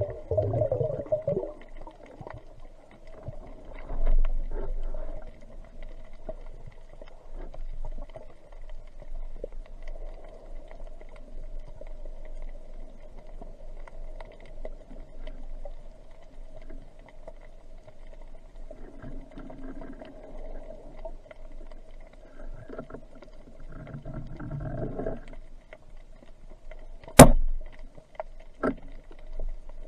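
Muffled underwater sound on a diver's camera: a steady hum with low water rumble, swelling briefly twice. Near the end, one sharp loud click, with a fainter click about a second and a half later.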